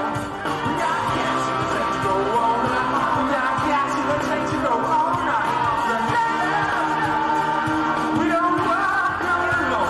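Live rock band playing with a singer, amplified through an arena PA and heard from the stands.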